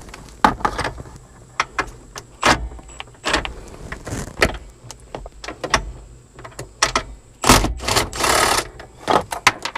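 Scattered metal clicks and clinks of a socket wrench and loose hardware, with a short rattling burst about eight seconds in, as the 14 mm nuts holding the steering column up are being removed.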